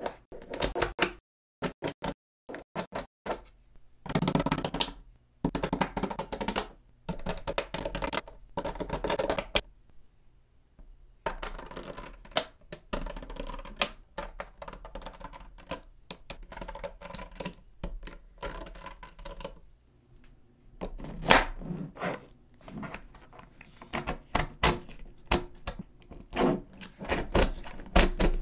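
Small magnetic balls clicking and snapping together as sheets of them are laid onto a block and pressed into place by hand: rapid, irregular clicks in clusters, with a few brief pauses.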